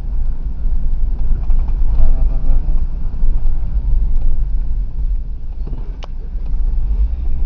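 A car driving on a paved street, heard from inside the cabin: a steady low engine and road rumble. A single sharp click about six seconds in.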